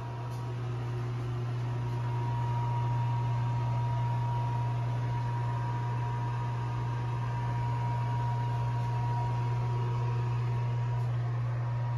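Steady low machine hum with a faint thin whine above it, swelling over the first couple of seconds and then holding even.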